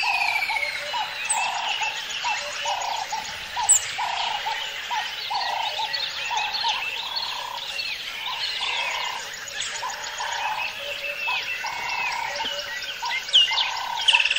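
Rainforest soundscape: a frog calling over and over in a steady rhythm, about once a second, under many birds chirping and whistling.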